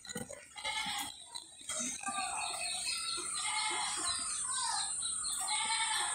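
Outdoor rural ambience: many short repeated animal calls over a steady high-pitched drone, with a few soft thumps in the first two seconds.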